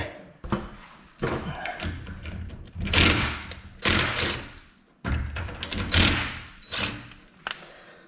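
Steel winding bars clanking and scraping in the winding cone of a garage door torsion spring as the spring is turned by hand, a quarter turn at a time, in about seven separate metallic knocks spread over the stretch.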